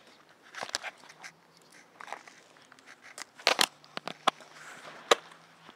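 Scattered sharp clicks and crackles of a camera being handled among pine branches, the loudest pair about three and a half seconds in.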